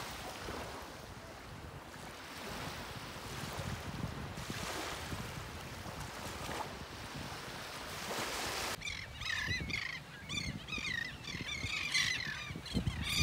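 Small waves washing onto a shelly beach, the surf swelling and easing. About nine seconds in it cuts abruptly to a large flock of seabirds calling over the shore, many shrill calls overlapping.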